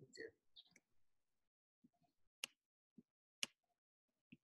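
Near silence with a few faint clicks, two sharper ones about a second apart: a stylus tapping on a tablet screen while numbers are handwritten.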